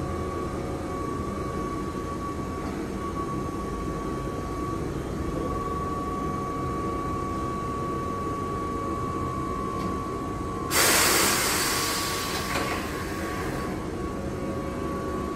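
Electric trains standing at an underground platform: a steady hum with a faint steady high tone. About eleven seconds in comes a sudden loud hiss of compressed air that fades over about two seconds, with a smaller hiss a second or so later, as the train readies to depart.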